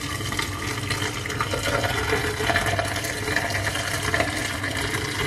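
A thin stream of boiling water poured from a kettle into a stainless steel sink drain, running steadily. The drain has just been cleared with baking soda and vinegar and takes the water freely.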